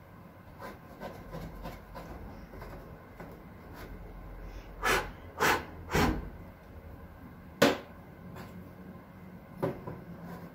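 A knife pushing a cleaning cloth around the plastic fan blades inside a Xiaomi air purifier: soft rubbing with light clicks, three louder scrapes in quick succession about halfway through, then a single sharp knock a little later.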